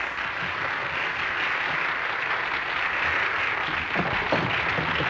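Audience applauding steadily right after a song's final chord, with faint voices near the end.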